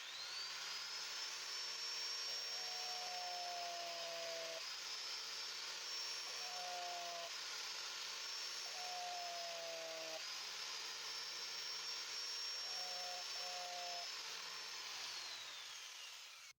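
Electric grinder sharpening a drill bit: the motor whine climbs as it spins up, runs steadily, then falls as it winds down near the end. Four separate spells of a lower-pitched tone come as the bit is held against the wheel.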